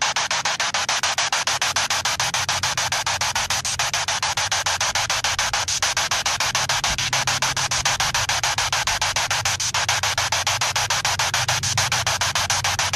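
Spirit box hissing radio static, chopped into a rapid, even pulse as it sweeps through stations, over a low steady hum.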